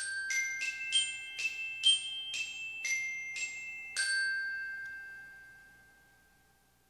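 Logo-sting jingle of bright, glockenspiel-like struck notes, about two a second. A last note about four seconds in rings on and fades away.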